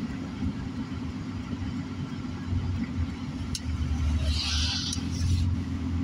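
Car driving on a wet road, heard from inside the cabin: a steady low engine and tyre rumble, with a single click about halfway through and a brief hiss a little later.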